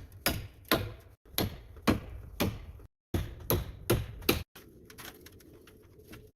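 Hammer strikes on timber, about two blows a second, in short runs separated by abrupt cuts, then only faint taps for the last second and a half or so.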